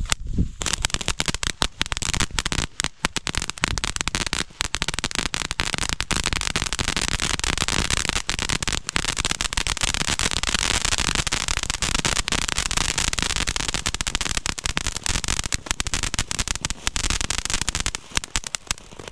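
Two firework volcano fountains spraying sparks: a steady hiss packed with dense crackling, starting about half a second in and dying away near the end.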